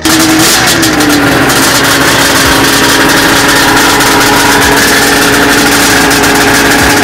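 Three-cylinder two-stroke race snowmobile engine with tuned expansion pipes, running loud and steady. It cuts in suddenly, its pitch sags slightly in the first second, and then it holds level.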